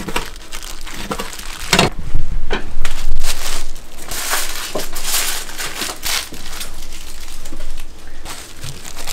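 Aluminium foil crinkling and rustling in irregular bursts as kimbap rolls are wrapped in foil sheets by hand.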